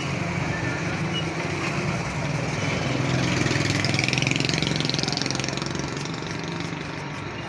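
Old sandpaper rubbed lightly around the steel shaft of a YDK sewing machine motor's armature: a scratchy rasping that grows louder about halfway through, cleaning up the worn shaft before a new bush is fitted. A steady engine runs underneath.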